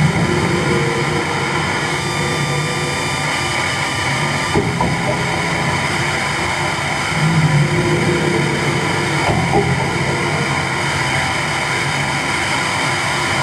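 Live electronic noise music from a table of effects pedals and electronics: a loud, dense wall of hiss and rumble with steady droning tones underneath. A low drone swells up about halfway through.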